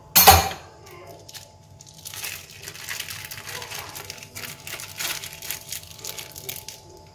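A sharp knock just after the start, then a thin plastic bag crinkling and rustling for several seconds as it is handled.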